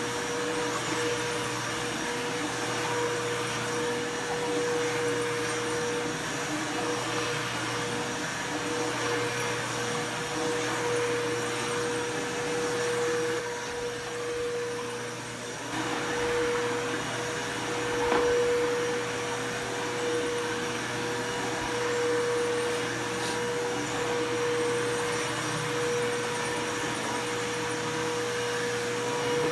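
Bissell PowerForce Bagless upright vacuum cleaner running steadily with a strong motor whine, its sound dipping briefly about halfway through and swelling a little a few seconds later as it is pushed over the floor.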